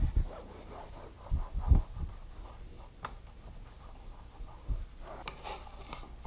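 Microfiber towel rubbing over the plastic dash trim of a Honda Gold Wing, working in vinyl and leather conditioner, with light irregular rubbing and a few soft bumps, the strongest about a second and a half in.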